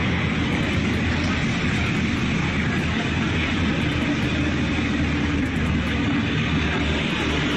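Steady vehicle noise: a car's engine and road rumble as it drives.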